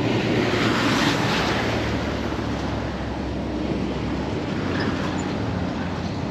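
Road traffic crossing a low concrete road bridge: a steady rumble, with one vehicle passing loudest about a second in.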